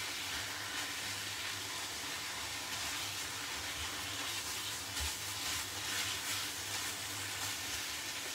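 Braising steaks sizzling as they brown in a frying pan, a steady hiss, with a few light knocks as the pieces are turned with tongs.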